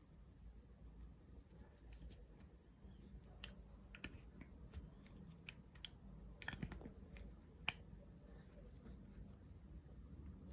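Faint scattered clicks and light knocks of small metal machine accessories being handled, with a sharper click about seven and a half seconds in.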